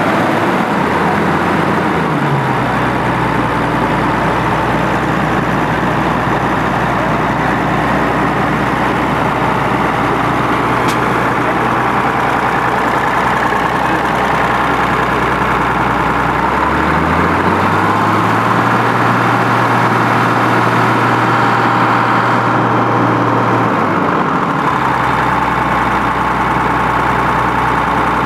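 Fendt 626 Turbomatik LSA tractor's turbocharged engine running at idle. About 17 seconds in it is raised to a higher steady speed, held for about seven seconds, then drops back to idle.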